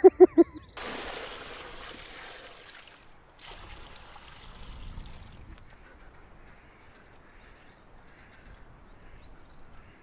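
Water poured from a plastic bucket splashing into a shallow plastic tub, in two pours: one starting suddenly about a second in, a second about three and a half seconds in that fades away. Just before the first pour, four short loud animal calls.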